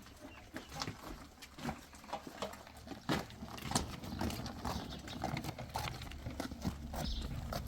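Irregular knocks and clicks, a few a second and unevenly spaced, over a low steady hum.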